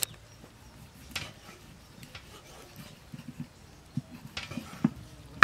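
Knives cutting chicken gizzards and liver on wooden chopping boards: irregular soft chops and taps of the blades on wood, with a sharper knock near the end.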